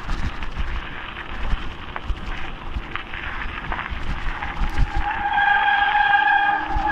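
Mountain bike rolling fast downhill on a rough dirt track, the tyres crunching over gravel and the bike rattling and bumping. From about five seconds in, the brakes squeal steadily as the rider brakes on the descent.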